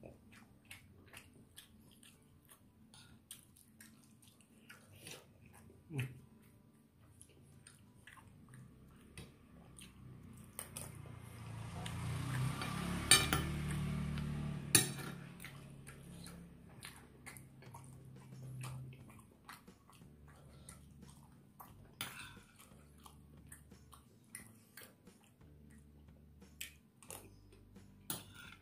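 Metal spoon clinking and scraping on a ceramic plate of rice, with chewing between scoops. About halfway through, a louder swell of rushing noise rises and fades over several seconds.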